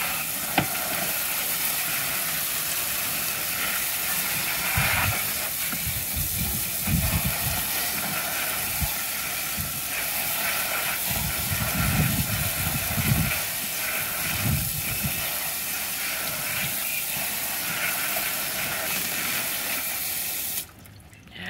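Garden hose spray nozzle hissing steadily as its jet hits plastic toys in a plastic tub, with patches of heavier splashing now and then. The spray cuts off suddenly near the end.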